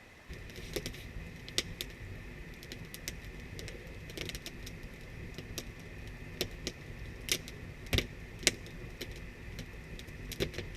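Small campfire of damp wood burning, crackling with irregular sharp pops as it catches. A steady high drone sits underneath.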